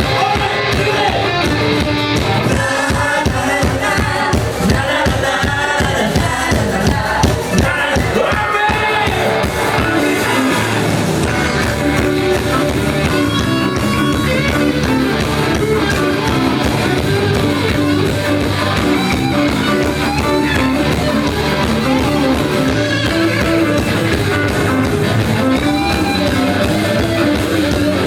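A live rock and roll band playing a song with singing, electric guitar, bass and drums. The heavy drum beat drops back about ten seconds in, leaving a repeating bass line and guitar.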